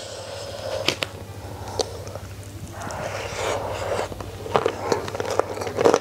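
Close-up eating sounds. Fingers gather rice and side dishes on the plate, then a hand-held mouthful is chewed, with a string of sharp chewing clicks in the last second or two.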